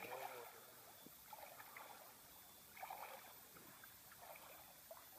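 Faint sloshing and trickling of shallow river water as a person wades through it.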